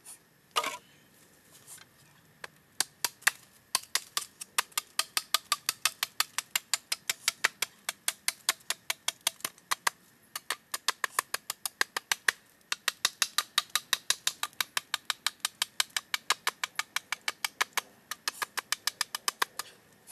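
A blade chopping rapidly at the end of a green bamboo pole, shaping it to a point, with sharp woody strikes about five a second and a few short pauses.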